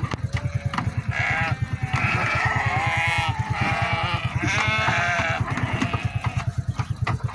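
Several Sardi ewes bleating, one call after another and sometimes overlapping, over a fast, steady low throb.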